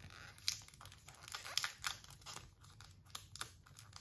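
Packaging around a set of sticker sheets crinkling and tearing as it is pulled open by hand, in irregular sharp rustles.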